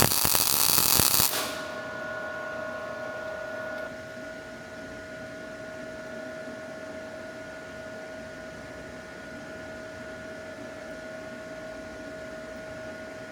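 MIG welding arc crackling, cutting off suddenly about a second in. A steady electrical hum with a faint high whine carries on after it.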